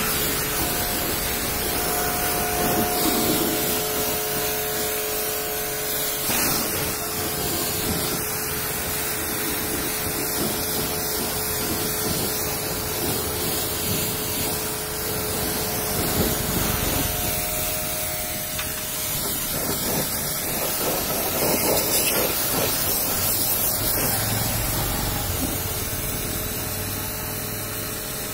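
Pressure washer spraying water onto a car's bodywork and wheels: a steady hiss with a faint steady hum beneath it.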